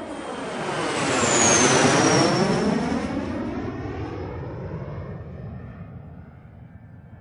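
Airplane flying past: the sound swells to a peak about two seconds in, a high whine drops in pitch as it goes by, then it fades away.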